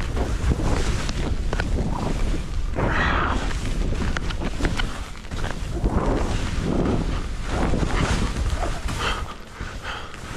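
Skis swishing and scraping through chopped-up snow in a series of uneven turns, with short clicks and chatter from the edges, over a steady rumble of wind on the microphone.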